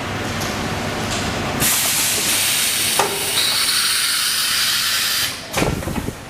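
High-frequency plastic welding machine running with a steady hiss that turns louder and brighter about a second and a half in, with a sharp click in the middle, then falls back just after five seconds, followed by a few knocks.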